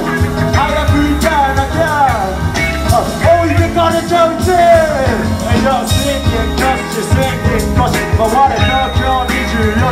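Live hip-hop band playing: a rapper's vocal over electric bass, drum kit and keyboard, with a steady beat.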